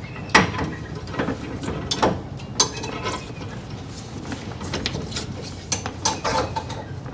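A steel screw clamp being tightened onto a bent metal bulwark plate: irregular metallic clicks, ticks and scrapes as the T-handle screw is turned and the clamp bites on the plate.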